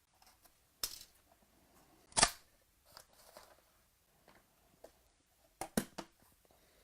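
A few sharp clicks and taps from handling trading-card packaging, the loudest about two seconds in and a quick pair near the end.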